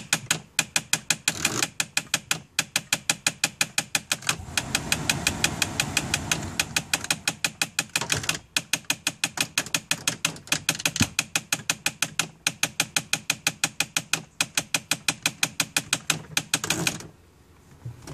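Rapid, even clicking from a 2002 Mitsubishi Galant, about six sharp clicks a second, breaking off briefly a few times and stopping about a second before the end. A rushing noise rises under the clicks about four to six seconds in.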